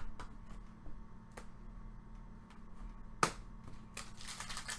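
Trading cards being handled: scattered faint clicks, one sharp snap about three seconds in, then steady crinkly rustling near the end.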